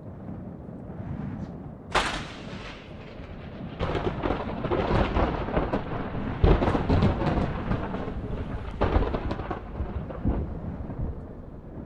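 A sound-design effect of deep booms and rumbling. A sudden crash comes about two seconds in, then from about four seconds a dense rolling rumble with sharp cracks that eases off near the end.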